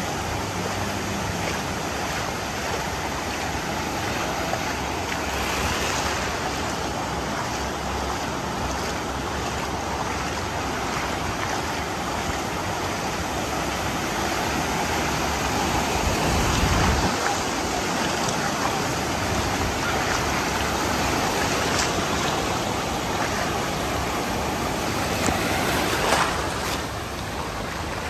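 Small surf breaking and washing up over a sandy shore, a steady wash of water. About halfway through there is a brief louder low rumble, and near the end a short sharper splash.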